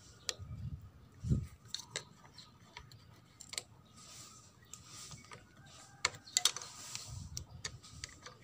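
Scattered light metallic clicks of needle-nose pliers and a piston-pin circlip against a Yamaha Vega ZR piston as the circlip is worked into its groove, with a few sharper clicks about six seconds in and some dull bumps from handling.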